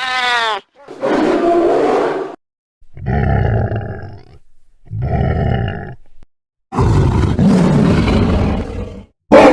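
Bengal tiger roaring: a run of about five separate roars, each one to two and a half seconds long, with short silences between them and sudden starts. The first has a clear pitch that slides, and the later ones are rougher and deeper.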